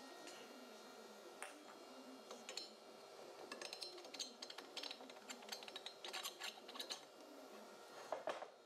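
Faint, rapid light clicks and taps of small hard objects being handled, thickening about a third of the way in, with a slightly heavier knock near the end, over a steady low hum.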